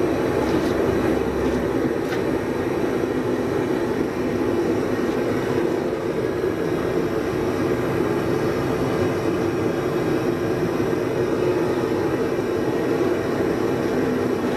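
A forge running: a steady rushing noise with a strong low hum, unbroken throughout.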